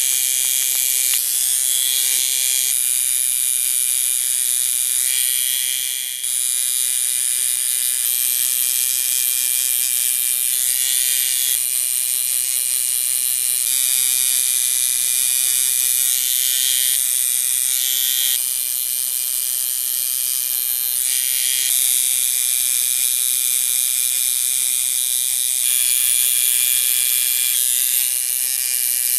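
Tattoo machine buzzing steadily as the needle works into skin, its tone changing every few seconds, with a brief dip about six seconds in.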